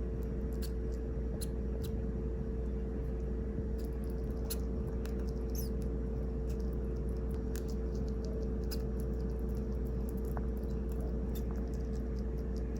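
Sugar glider eating a treat, faint irregular little clicks and ticks from her licking and chewing, over a steady low hum.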